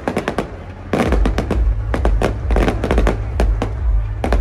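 Aerial fireworks display: shells bursting in rapid, overlapping bangs and crackles, thickening into a dense volley about a second in, over a continuous low rumble.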